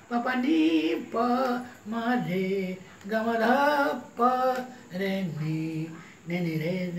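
An elderly man singing unaccompanied in short phrases of about a second each, with brief pauses between them and the pitch sliding within each phrase.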